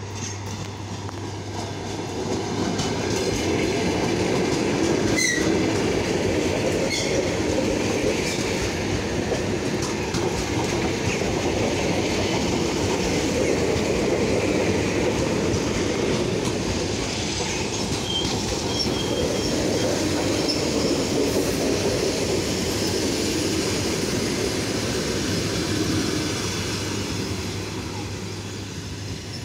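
Eight-car ER9M electric multiple unit pulling into a station platform: a rolling rumble with wheels clattering over the rail joints and occasional brief high wheel squeals. The noise swells about two seconds in and fades over the last few seconds as the train slows to a stop.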